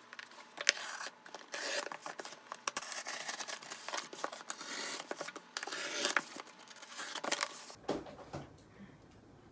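Close-up rustling, tearing and crinkling of packaging being handled and opened, with sharp little clicks and snips among it. It stops abruptly about eight seconds in, leaving a faint room hum.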